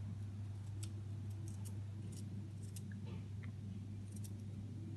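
Garlic cloves being sliced by hand with a small knife, giving a few faint, scattered clicks as the blade cuts through, over a steady low hum.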